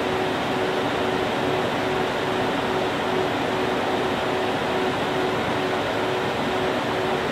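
Electric radiator cooling fan running at a steady high speed, a rushing whir with one steady tone in it, beginning to spin down with a falling pitch at the very end.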